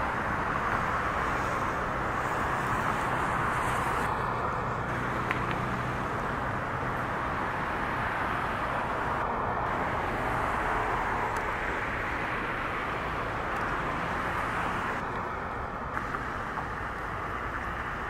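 Steady, even noise of road traffic from surrounding streets. A faint steady whine comes in briefly three times, each for about a second.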